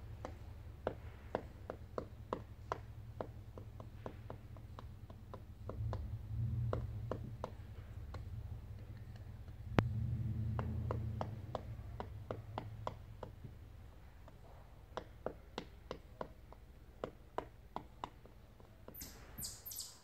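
Pileated woodpecker excavating inside a tree cavity: single, irregular pecks of its bill into the wood, about three a second. The pecking pauses for about a second and a half, then resumes.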